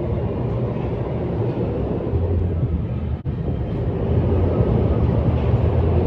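A steady low rumble with a noisy hiss above it, cut off for an instant about three seconds in.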